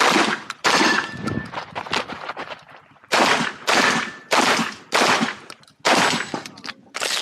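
Shotgun fired in rapid succession during an IPSC stage. There are two shots, then a gap of about two seconds with quieter handling sounds, then a run of about seven shots roughly two-thirds of a second apart.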